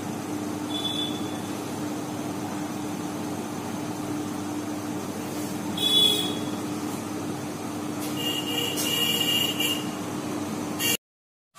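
Steady background traffic noise with a constant low hum, broken by a few short high horn toots, the longest from about 8 to 10 seconds in. It cuts off abruptly near the end.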